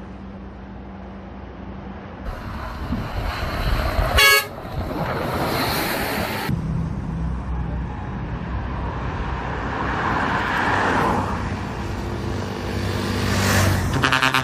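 A bus horn sounds one short, loud blast about four seconds in, over steady engine and street traffic noise.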